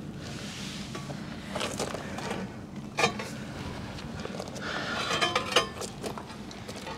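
Metallic clinks and knocks from handling a bronze boat propeller as it comes off its tapered steel shaft, with one sharp knock about three seconds in and a quick run of light clinks a couple of seconds later.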